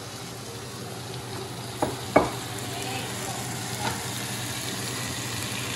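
Chicharrón, onion and chopped roasted chiles frying in a pan, sizzling as spoonfuls of molcajete salsa go in and are stirred, the sizzle growing slightly louder. Two sharp knocks of a spoon about two seconds in.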